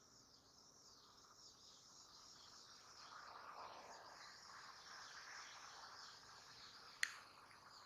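Near silence with faint, steady chirring of crickets, and a single sharp click about seven seconds in.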